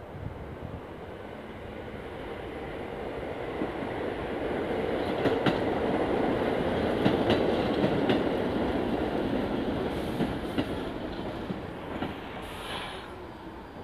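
R46 subway train rolling in on the far track. Its running noise swells and then eases off as the train slows, with sharp clicks of wheels over rail joints in the middle and a brief high squeal near the end.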